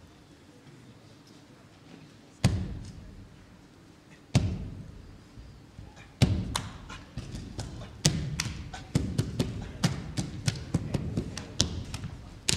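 Heavy, booming thuds with a long ringing tail. The first few seconds are quiet, then single hits come about two seconds apart, quickening from about eight seconds in into an irregular run of thuds and sharper taps.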